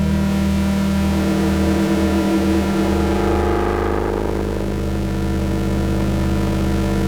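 Soma Labs Lyra-8 analog drone synthesizer playing a dense, sustained drone of several steady low tones stacked together. Higher tones swell and shift about midway through.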